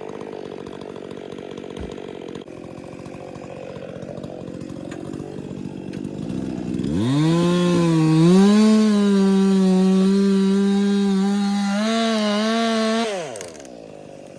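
Two-stroke chainsaw running at a low idle, then throttled up sharply about seven seconds in and held at full revs for about six seconds as it cuts wood, the pitch sagging briefly under load, before being released back down near the end.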